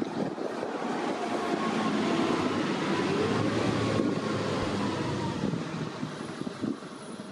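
A BRT bus passing close by: engine and road noise swell to a peak a couple of seconds in and then fade. A whine drops in pitch as the bus goes past.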